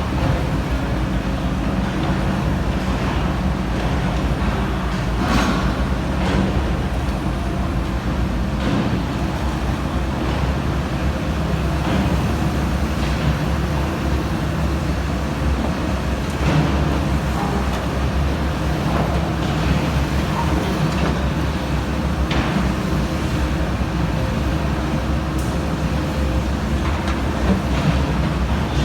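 Komatsu PC350-7 excavator's diesel engine running steadily under load, with occasional metallic clanks from the machine working.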